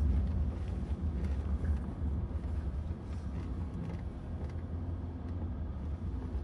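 Range Rover Evoque's engine and drivetrain heard from inside the cabin as a steady low drone, pulling up a wooded slope under throttle after the tyres have found traction.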